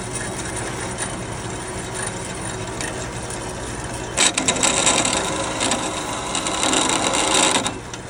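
Harbor Freight 7x12 bandsaw running, its motor and gearbox giving a steady mechanical run. About four seconds in the blade bites into a workpiece and the sound grows louder and harsher for three or four seconds, then drops back to the steady idle run.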